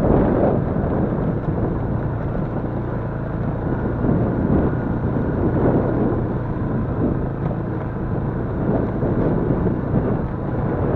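Yamaha Crypton-X motorcycle's single-cylinder four-stroke engine running at a steady pace while riding, with wind buffeting the microphone.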